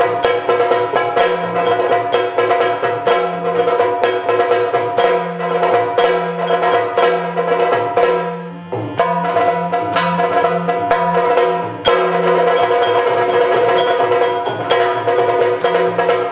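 Yakshagana dance accompaniment: fast drumming on chende and other drums, with sharp stick strokes, over a steady drone. The music thins out briefly about eight seconds in, then comes back in full about twelve seconds in.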